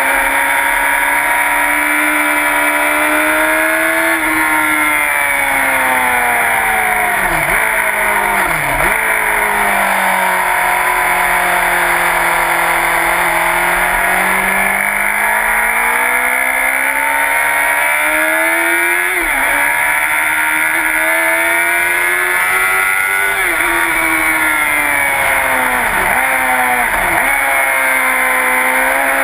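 Sport bike's engine heard onboard at speed on a race track, its pitch climbing and falling as the rider works the throttle, with quick breaks in pitch at gear changes: two about eight seconds in, one just before twenty seconds, and two near the end. Steady wind rush over the microphone runs under it.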